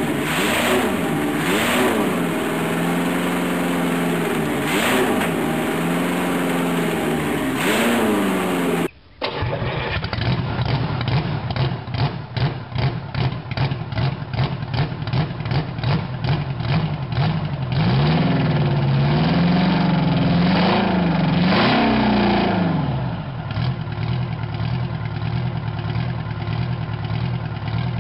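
A multi-cylinder engine on a test stand is revved up and down several times, then the sound cuts off. Next a large V-type diesel engine turns over in a slow rhythmic chug of about three beats a second, catches about halfway through, revs briefly and settles into a rough steady run.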